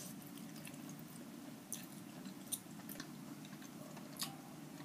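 Faint chewing of a mouthful of carbonara pasta, with a few short wet clicks and smacks of the mouth, over a steady low hum.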